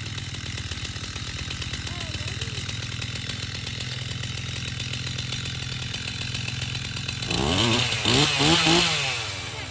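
Gas-powered two-stroke chainsaw idling steadily as it warms up after starting. About seven seconds in it is revved up, the engine pitch rising and then falling back to idle.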